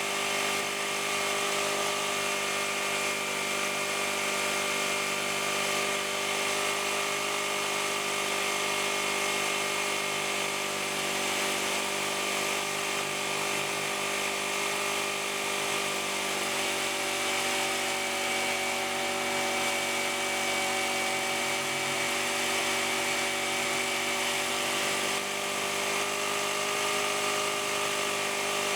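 AIRMAN EP2300 portable generator running steadily after its oil change, its engine tone shifting slightly for a few seconds past the middle before settling back.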